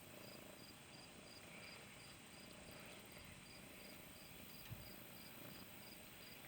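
Faint cricket chirping, a steady high chirp repeated about three times a second, over near-silent background.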